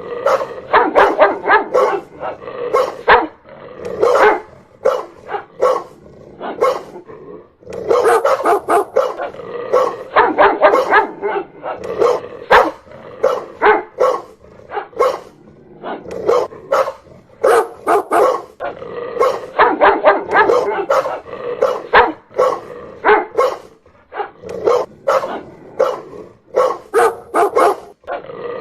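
A dog barking loudly in rapid, almost continuous volleys, with brief lulls about seven seconds in and again near the end.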